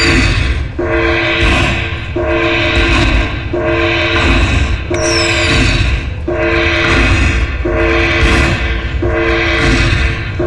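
Slot machine playing its bonus win tally music at the end of a hold-and-spin feature: a held two-note electronic chord that repeats about every second and a half, with a quick falling whistle twice.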